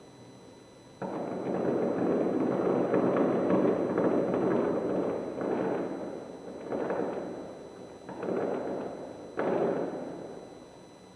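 Fireworks heard from over a kilometre away: a sudden bang about a second in opens a dense few seconds of bangs and crackle, followed by three more bursts, each with a sharp start and a slow fade, the last fading toward the end.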